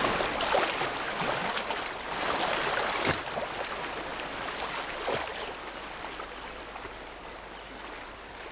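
River water splashing and churning as crocodiles thrash and shake a carcass, with several sharp splashes in the first few seconds, then steadier, quieter water noise.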